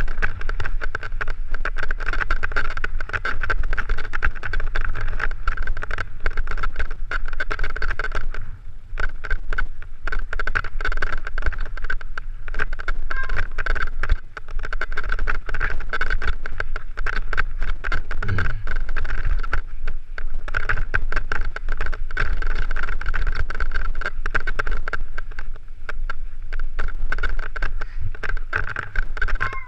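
Mountain bike clattering and rattling continuously over a rough, rocky trail, heard from a helmet-mounted camera, with wind buffeting the microphone as a steady low rumble.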